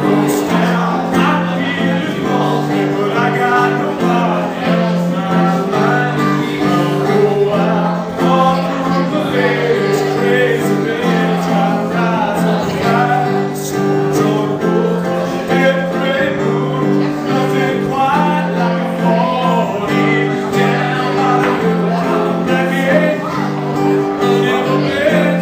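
A man singing to his own strummed guitar accompaniment. The chords change about every second and a half, under the sung melody.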